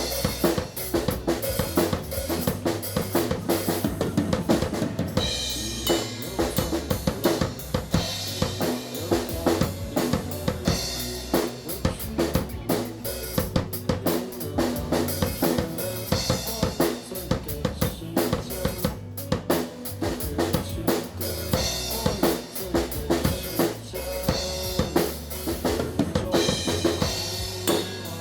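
Rock band music, driven by a drum kit beating out a steady kick-and-snare pattern over bass, with no singing transcribed.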